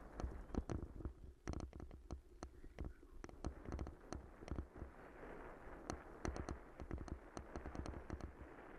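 Bicycle rattling over rough, patched tarmac: irregular sharp clicks and knocks, with a steady low rumble of tyre and wind noise underneath.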